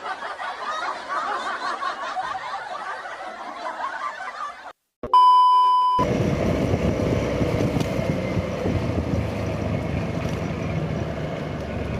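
A dense, crackly noise that cuts off after about four and a half seconds, then a steady electronic beep lasting about a second. It is followed by road traffic noise with engines running.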